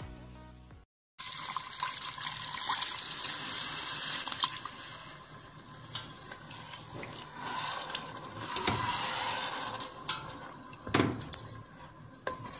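Tomato paste mixed with water poured into a pot of bulgur and tomatoes, a long splashing, hissing pour. Near the end a spatula stirs and knocks in the pot.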